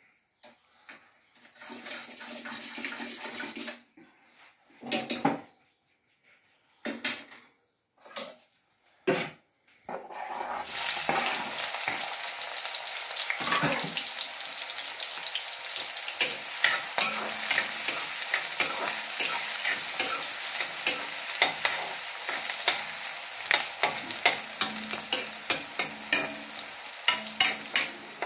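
Chopped red onions frying in a steel kadai, sizzling steadily from about ten seconds in. A metal ladle scrapes and taps against the pan as they are stirred, with many short clinks over the sizzle in the second half. Before the sizzling starts there are only a few scattered short sounds.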